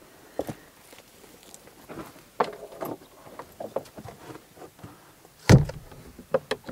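Wooden root-cellar door being handled and pulled shut: scattered knocks, then one heavy thump as it closes about five and a half seconds in, followed by a few sharp clinks of its metal chain latch being hooked.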